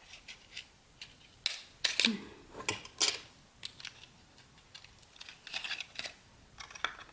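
Lipstick packaging being opened and handled by hand: a scattered run of light clicks, taps and scrapes.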